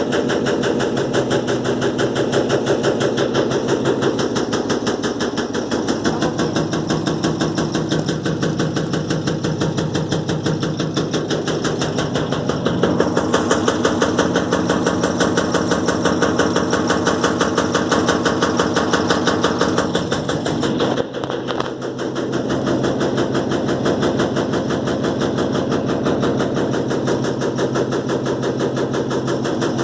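Electrolux LTE12 top-load washing machine spinning, with a fast continuous rattling knock as the tub shakes on its suspension under an unbalanced load. The sound dips briefly about two-thirds of the way through.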